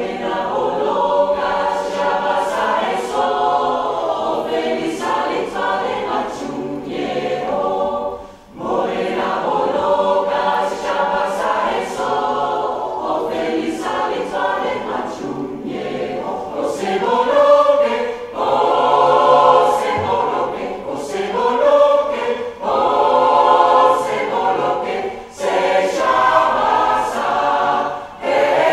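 Mixed choir of men and women singing together in sustained phrases, with a brief breath-break a little past eight seconds in and shorter ones later.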